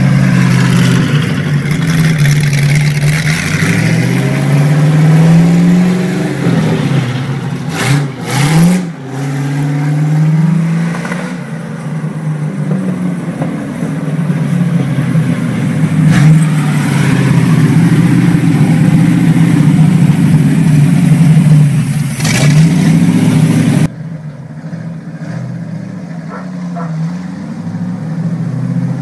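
V8 engine swapped into a small vintage tractor, running and revving up and down repeatedly as the tractor drives. The sound drops suddenly to a quieter, more distant engine note near the end.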